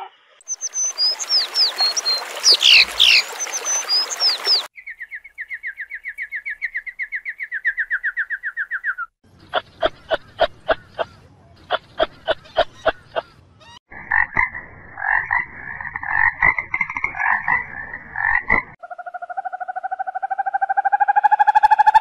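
A series of different animal calls, one after another. First come high chirps over hiss, then a fast, even trill. Next are groups of sharp clicks and a pulsed croaking, and near the end a rising, drawn-out call.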